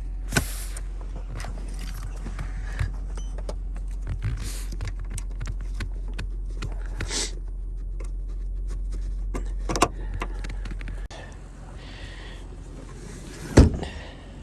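Light metallic clinks and taps from hands working on a car, over a steady low hum that cuts off abruptly about eleven seconds in. A single loud thump comes near the end.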